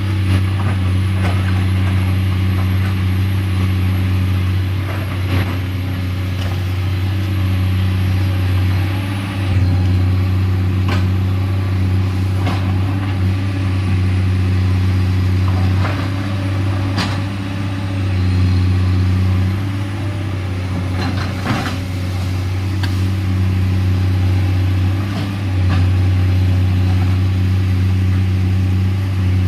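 Komatsu PC210LC excavator's diesel engine running steadily under load, its drone easing off briefly every several seconds, with scattered knocks.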